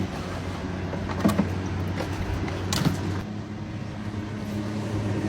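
Small electric fan motor running with a steady hum, with a couple of sharp clicks about one and three seconds in.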